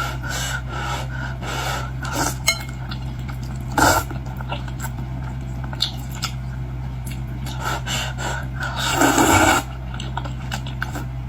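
Close-miked eating of shell-on boiled seafood, with shells and utensils handled in short scattered clicks and scrapes. About nine seconds in there is a longer, louder scraping burst. A steady low hum runs underneath.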